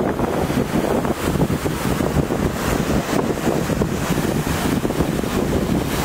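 Wind buffeting the microphone, over small lake waves washing against a rocky shore.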